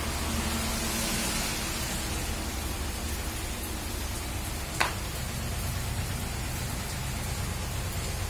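Steady rain falling, an even hiss with no words over it. A single sharp click about halfway through.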